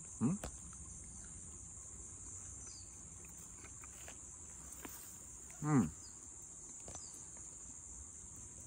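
Steady high-pitched insect chorus. A man, chewing, hums a short 'mm' twice: once right at the start and once near six seconds in.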